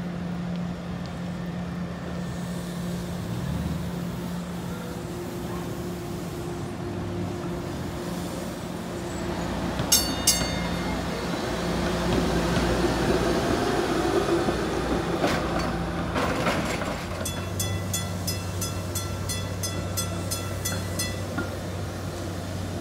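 A SEPTA Kawasaki light rail trolley running on street track, its wheels and motors growing louder as it passes close. Two short dings come about ten seconds in, and a rapid bell-like ringing of about four strikes a second follows for several seconds near the end.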